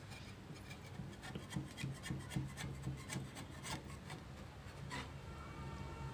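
A steel spatula scrapes and stirs grated carrots boiling in milk in an iron kadhai, with a run of quick scraping strokes against the pan. A faint steady high tone comes in near the end.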